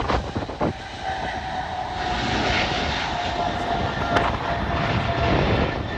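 Aircraft engines running, a steady whine over a broad rush of engine noise, with wind buffeting the microphone near the start.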